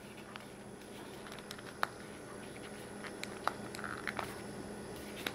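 Faint handling of a small plastic Mpow M8 earbud charging case as fingers pry at its lid, giving a few light clicks; the sharpest comes about two seconds in.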